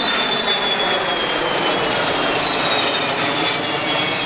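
Kawasaki C-1 transport jet flying past, its twin turbofans giving a steady loud engine noise with a high whine that slowly falls in pitch.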